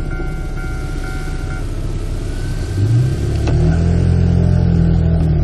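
Level-crossing warning bell dinging about twice a second, stopping a little over a second and a half in. About three seconds in, a vehicle engine revs up and pulls away steadily, with one sharp click just after it starts.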